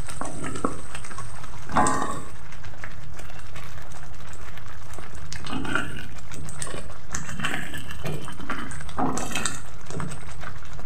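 Blended spice paste frying in hot oil in a metal wok, a steady sizzle, while a wooden spatula stirs and scrapes through it in a few strokes, at about 2, 6 and 9 seconds in.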